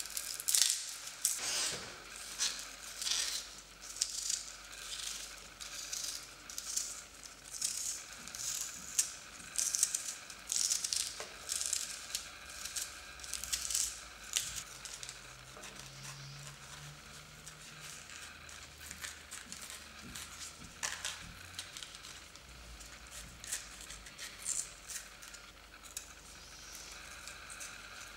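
Dry, papery onion skins crinkling and crackling as they are peeled off by hand, in repeated rustling bursts. About halfway through the handling turns quieter, with only occasional crackles.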